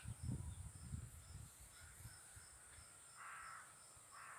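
Faint hoarse crow caws, twice about three and four seconds in, over a steady high drone of insects. A low rumble of wind or handling on the microphone in the first second.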